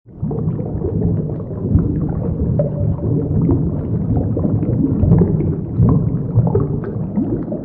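Underwater ambience sound effect: a dense, loud low wash of bubbling and gurgling water, with a few short rising moans through it.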